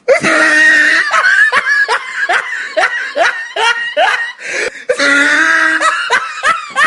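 A person laughing: a quick run of short rising 'ha' sounds, about three a second, with longer held notes at the start and about five seconds in.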